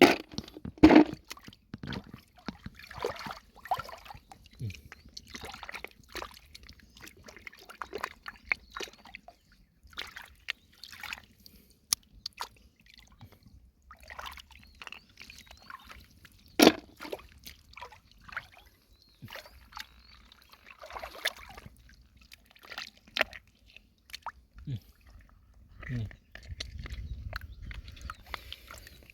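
Shallow lake water sloshing and splashing in short, irregular bursts as hands pick snails and clams from it.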